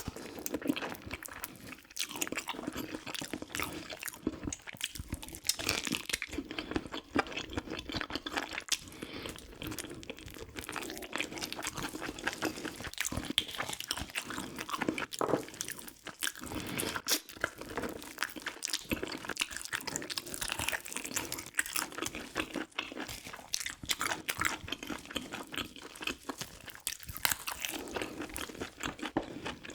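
Close-miked chewing and biting of a meal of soy-braised pigs' feet and kimchi: a steady run of small crunches and clicks from the mouth, with no pauses.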